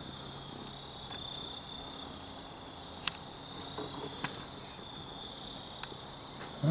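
A faint, steady, high-pitched trill, with two sharp clicks about three and four seconds in. A loud, short, rising call begins right at the end.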